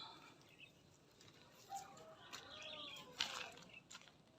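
Quiet garden ambience with faint bird chirps and a short rustle of plants about three seconds in, as fern shoots are handled.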